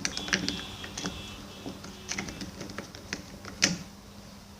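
Irregular light clicks and taps from stirring homemade slime in a bowl set over ice, with one sharper knock about three and a half seconds in.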